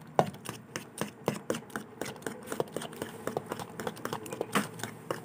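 A spoon stirring thick grated-cassava batter in a plastic bowl, knocking and scraping against the bowl in many quick, irregular clicks.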